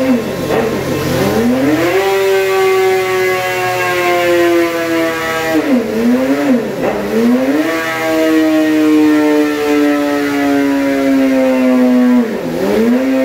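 Suzuki GSX-R 750's inline-four engine, breathing through an M4 shorty slip-on and cat-delete pipe, running under load on a dyno. It revs up quickly and is held high for several seconds with its pitch slowly sagging, drops and climbs again about halfway through, and is held high once more.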